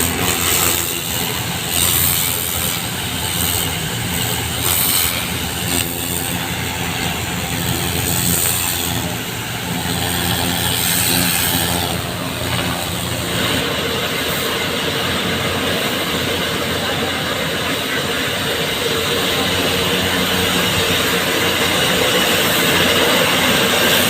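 Engine running steadily under a constant hiss; about halfway through the hiss grows brighter and higher.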